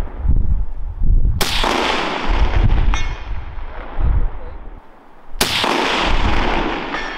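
Two rifle shots from a short-barrelled .308 AR-10, about four seconds apart, each followed by a long echo.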